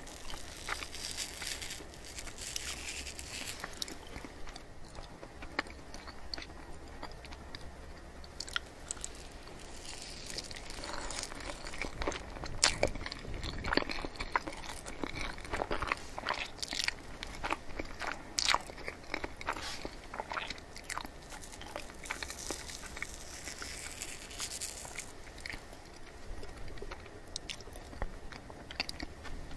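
Close-miked chewing of soft, creamy mille crêpe cake: a steady run of wet, sticky mouth clicks and smacks, busiest about halfway through.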